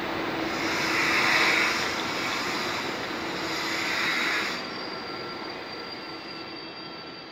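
Italo high-speed electric train rolling slowly past along the platform. Its rolling noise swells twice and then fades, and a thin high squeal from the wheels runs through the last few seconds.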